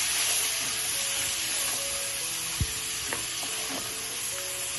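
Mixed vegetables sizzling in melted butter and garlic in a frying pan, a steady hiss, with a few sharp clicks and a knock of the stirring utensil against the pan.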